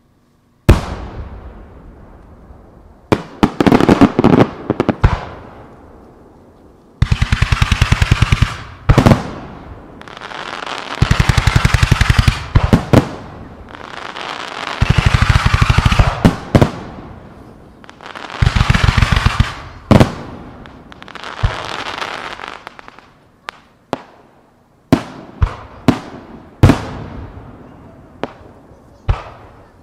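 Aerial firework shells bursting with sharp bangs, with four runs of rapid, evenly spaced pops about a second and a half long, each under a crackling hiss, and scattered single bangs near the end.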